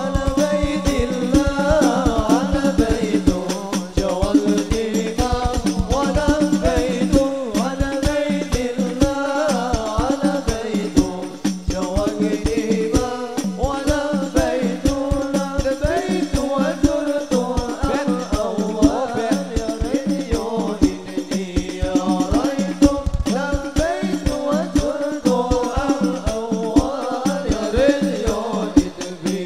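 Banjari sholawat ensemble: rebana frame drums beaten in a fast, dense rhythm under Arabic devotional singing into microphones, heard through a loudspeaker system.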